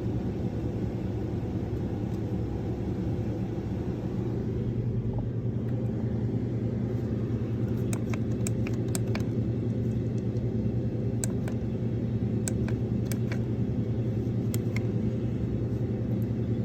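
Motorhome rooftop air conditioner running: a steady hum and rumble, with a few light clicks from about halfway through.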